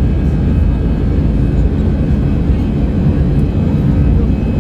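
Airbus A320 jet engines running: a loud, steady low rumble with faint steady whining tones above it.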